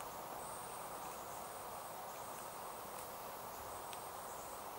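Steady faint hiss of room noise, with a few faint small ticks from a screwdriver working the small screws of a cable plug.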